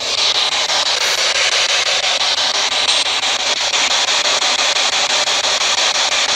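Loud, steady hiss of radio static from a ghost-hunting spirit box, cutting in abruptly. The hunters listen through it for the robotic-sounding voice they believe answers them.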